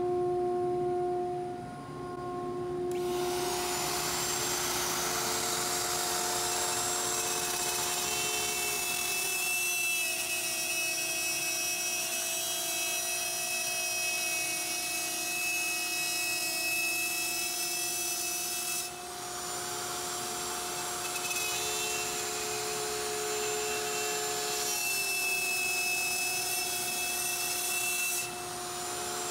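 Porter-Cable plunge router running at full speed and cutting a round hole through 3/4-inch plywood along a template with a guide bushing, taking a shallow pass about 1/4 inch deep. The cutting noise sets in about three seconds in and eases briefly twice, about two-thirds of the way through and near the end, over the steady motor whine.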